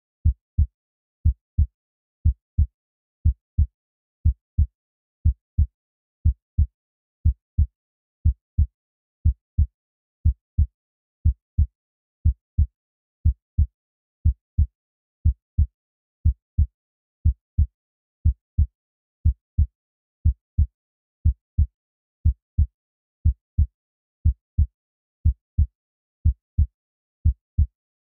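Heartbeat sound, a steady lub-dub: pairs of low, dull thumps about once a second, about sixty beats a minute, with silence between the beats.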